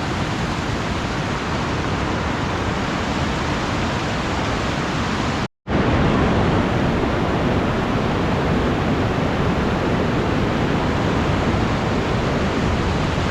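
Steady rush of a fast-flowing mountain creek tumbling over boulders, a dense even roar across all pitches. It cuts out for an instant about five and a half seconds in and comes back slightly louder.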